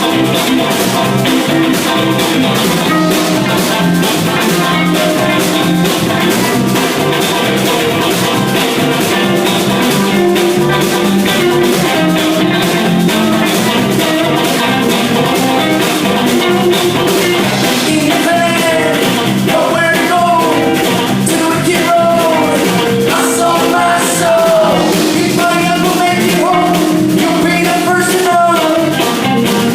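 Rock band playing with guitar and drum kit, a steady beat throughout; a singing voice comes in about 18 seconds in.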